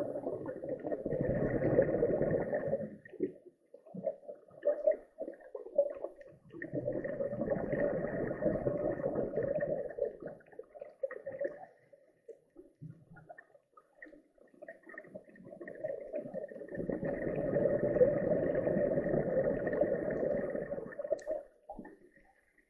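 Scuba diver's exhaled air bubbling out of the regulator in three long bursts several seconds apart, with quieter gaps between them while the diver breathes in.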